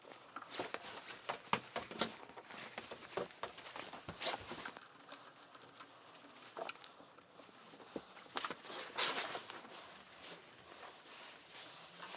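Irregular clicks, taps and rustles of hands and tools on small plastic and metal parts as the carburettor is refitted to a Briggs & Stratton 450E lawnmower engine.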